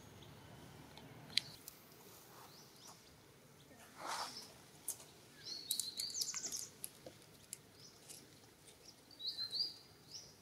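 Birds chirping in the background: short high calls, clearest between about five and seven seconds in and again near the end. A sharp click comes about a second and a half in, and a short burst of noise at about four seconds.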